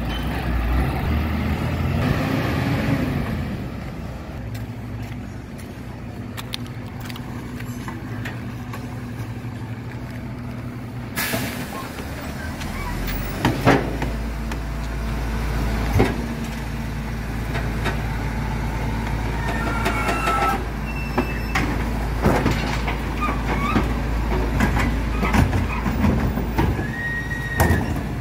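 Six-cylinder diesel engine of a MAN TGM 18.290 recycling compactor truck running at the kerb. About eleven seconds in there is a short burst of air, typical of an air brake, and after that the engine's low rumble grows stronger. Metal clanks and knocks from a large wheeled recycling bin being handled at the rear hopper come through the engine sound.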